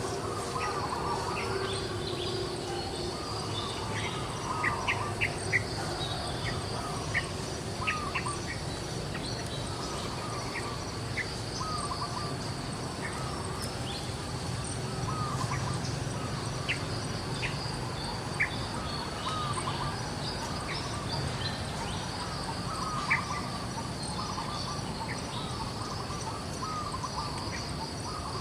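Outdoor nature ambience: a steady high insect drone, with short chirping calls repeating every second or two and scattered sharp ticks over it.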